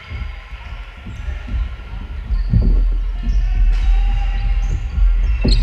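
Dodgeball play: a low thudding rumble that grows louder about halfway through, with a few sharp ball impacts.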